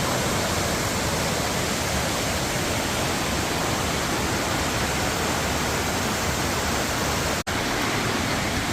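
Waterfall rushing: a steady, loud wash of falling water with no change in level. The sound drops out for an instant about seven and a half seconds in.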